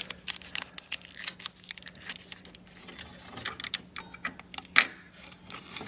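Scattered light clicks and rustles of fingers and tape working among the cables and parts inside a desktop PC case to retrieve a loose CR2032 coin-cell CMOS battery. One sharper click comes near the end, over a faint steady hum.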